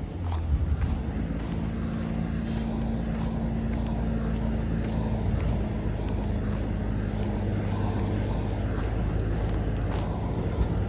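Engine of heavy junkyard machinery running steadily with a low hum, as the yard gets ready to crush cars.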